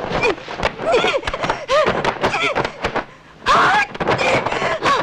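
Martial-arts fight sound from a wuxia film: a rapid run of sharp strikes and hits mixed with short shouted cries that rise and fall in pitch. After a brief lull about three seconds in comes a louder shout.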